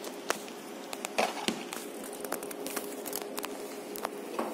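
Handling noises on a desk: a scatter of short clicks and light knocks as a cable, pouch and papers are picked up and moved. A steady low hum runs underneath.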